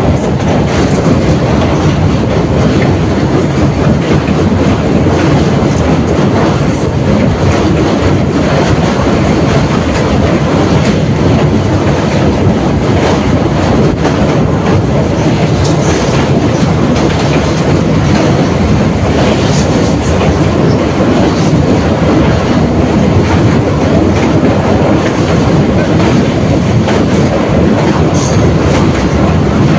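DEMU (diesel-electric multiple unit) train running along the track: a loud, steady rumble of wheels on rail, with scattered clicks and short high squeals.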